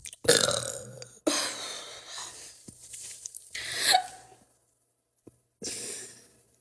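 A woman's short throat and breath sounds, hiccup-like, in several bursts with a quiet gap shortly before the end, brought on by drinking carbonated drinks.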